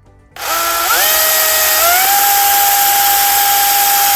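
DeWalt cordless chainsaw's electric motor spinning up. Its whine rises in pitch in two quick steps within the first two seconds, then holds steady at full speed.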